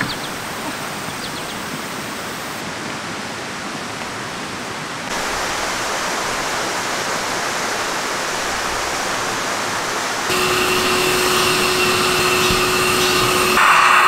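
Steady rushing of flowing water. About ten seconds in, a small electric air pump starts running with a steady hum and hiss, inflating a vinyl pool float, and it grows louder near the end.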